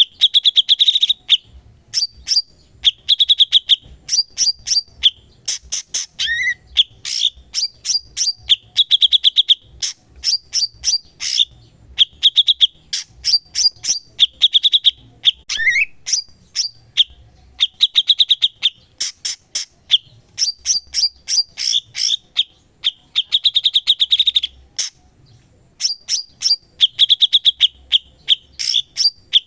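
Cucak cungkok cage bird singing continuously in rapid, stuttering high-pitched trills, phrase after phrase with short gaps. A couple of brief rising notes break in between the phrases.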